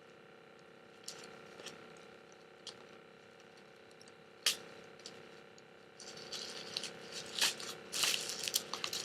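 Cosmetic packaging being handled: a few scattered light clicks and taps, one sharper knock about halfway, then a busier stretch of rustling and rattling over the last few seconds. Under it is a faint steady hum.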